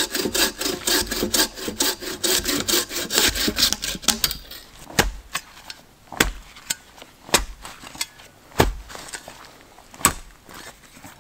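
A bow saw cutting through a log in quick back-and-forth strokes for about four seconds, then a folding shovel striking into the earth five times, roughly a second apart.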